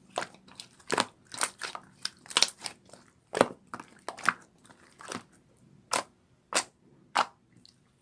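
A run of short, sharp crunching clicks at an uneven pace, about two a second.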